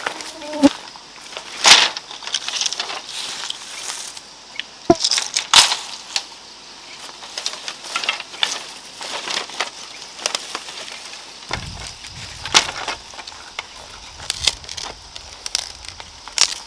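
Insects buzzing steadily, with irregular crisp snaps and rustles over them.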